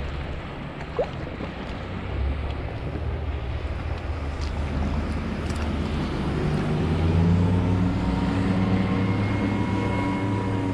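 Wind noise on the microphone over moving river water, with a motorboat engine droning in from about halfway and growing louder as a steady hum.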